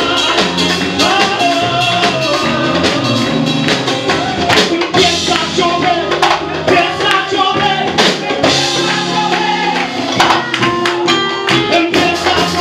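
Religious praise music: singing over instruments with tambourine and drums keeping a steady beat.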